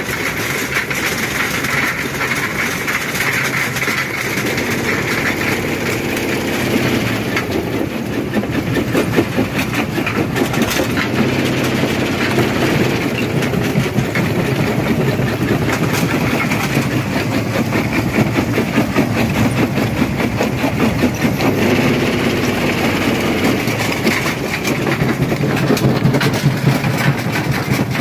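Rock crusher running and breaking stone: a steady machine hum under a dense, continuous rattle and crunch of rock.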